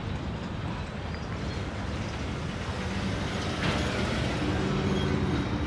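Freight train cars rolling past a grade crossing, a steady rumble with a faint low hum joining about halfway through.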